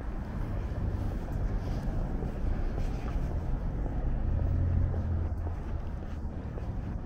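A vehicle passing on a street, a low rumble that swells to its loudest about four to five seconds in and then eases off.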